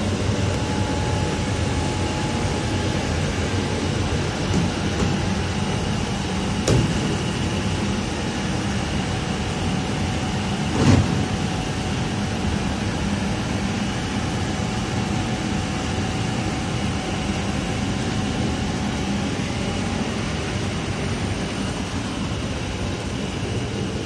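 Industrial microwave dryer running: a steady drone from its cooling fans with a faint steady whine. There are two short knocks, about seven and eleven seconds in.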